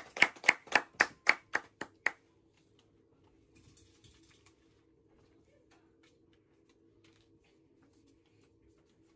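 Hand clapping, about five quick claps a second, which stops about two seconds in. After that there is quiet room tone with a faint steady hum and a brief soft rustle about four seconds in.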